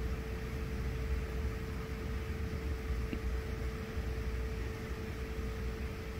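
Steady background hum: a low rumble, a constant mid-pitched hum and a faint hiss, like a fan or other appliance running in the room.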